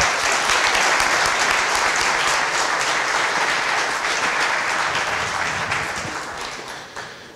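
Audience applauding, the clapping steady at first and dying away near the end.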